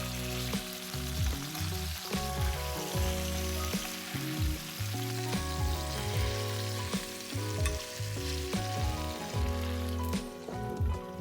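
Food sizzling as it fries in hot fat in a pan, a steady crackling hiss.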